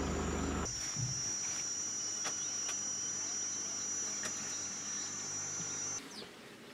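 Steady, high-pitched insect trill from the bush, unbroken until it stops abruptly near the end. A low steady hum stops under a second in.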